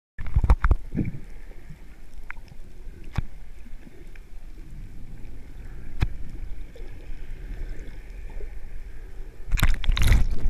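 Seawater against a camera being plunged underwater: loud splashing and sloshing as it goes in. Then a muffled underwater rumble with a few sharp clicks, and more loud churning and gurgling near the end as it moves near the surface.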